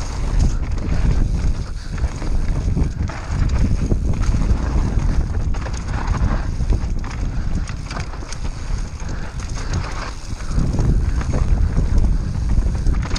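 Wind rushing over the microphone of a camera mounted on a mountain bike descending a dirt singletrack, with the bike's frame and tyres rattling and knocking over ruts, roots and stones.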